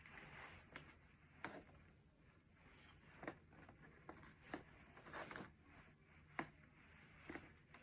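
Faint handling sounds: a few light taps or clicks, spaced a second or two apart, and a short stretch of soft rustling as craft materials are worked by hand.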